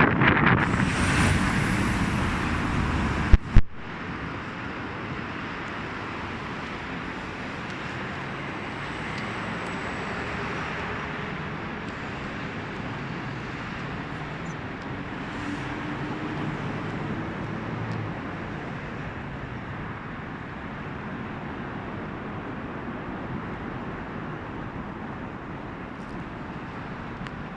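Steady outdoor noise of distant vehicles. It is loud at first and fades over the first few seconds, with a single sharp click about three and a half seconds in.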